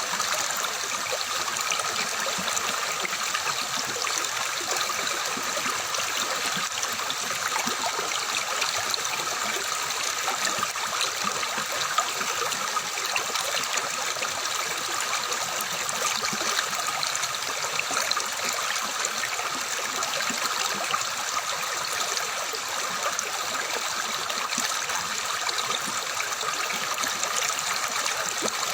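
A small stream of water running and splashing steadily, a continuous bright babbling without a break.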